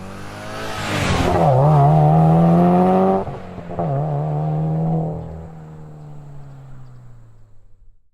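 Subaru WRX STI's turbocharged flat-four engine with an HKS aftermarket muffler, revved up and held about a second in, dropped, then revved again briefly before settling back toward idle and fading out.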